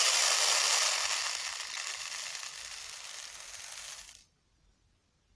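Canary seed mix poured from one plastic tub into another: a steady rush of falling seeds that is loudest at the start, thins out and stops about four seconds in.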